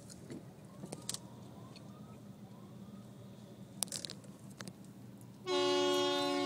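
Car horn held in one long steady blast for about two seconds, starting near the end, over the low hum of a car driving in traffic. Before it, several faint short rising tones repeat.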